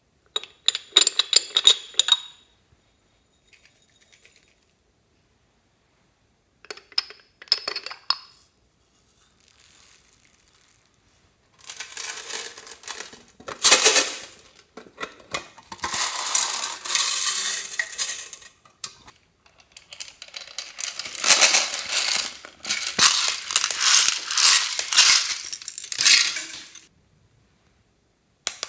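Small hard beads and sprinkles rattling and clinking as they are handled and tipped out of small plastic toy containers. Two short bursts of clicks come first, then two long stretches of dense rattling that stop suddenly near the end.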